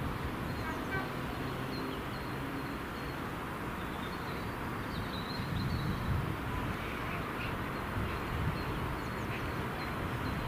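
Diesel freight locomotive engines making a steady low rumble, with birds chirping.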